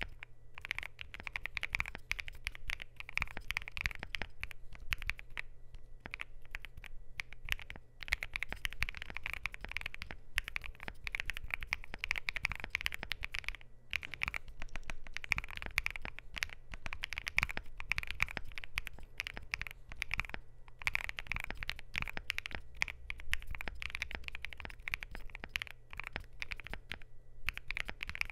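Continuous typing on a Luminkey LK65 mechanical keyboard with lubed, filmed Gateron Sylva linear switches, Thera75 keycaps and a polycarbonate plate in a silicone gasket mount. The key strokes come in a dense run, broken by a few brief pauses.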